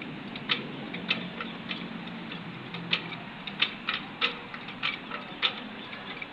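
Even, rhythmic clicking, a sharp click about every 0.6 seconds with fainter clicks between, over a low steady hum.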